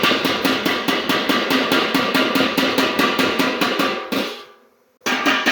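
Background music with a fast, even drum beat over sustained tones. It fades out about four seconds in, then comes back in one short burst near the end.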